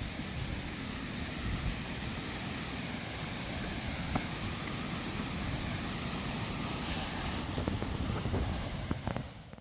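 Steady rush of the creek and waterfall, with low wind rumble buffeting the microphone and a few light taps. The sound cuts off abruptly at the very end.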